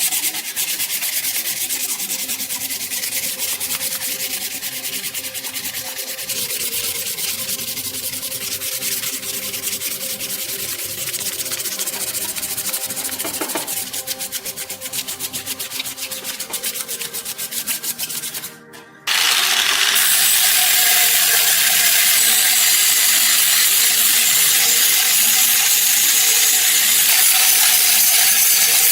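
Abrasive rubbing and sanding on the rusty metal of an antique oil lamp during rust removal: a steady, rapid scratchy hiss. It cuts out briefly a little past halfway, then comes back louder and coarser.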